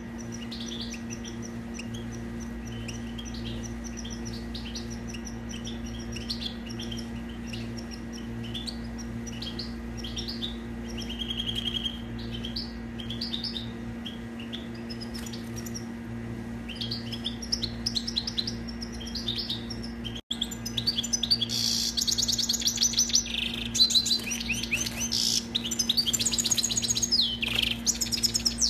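European goldfinch singing: quick twittering phrases of chirps and trills, softer at first, then louder and denser after a brief break about twenty seconds in, over a faint steady hum.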